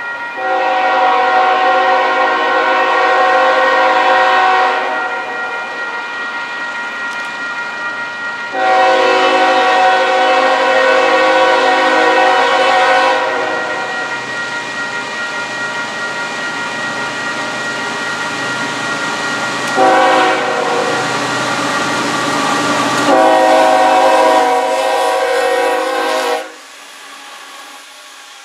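Diesel locomotive air horn sounding the grade-crossing pattern as the train approaches: two long blasts, a short one, then a final long blast that cuts off as the locomotive reaches the crossing.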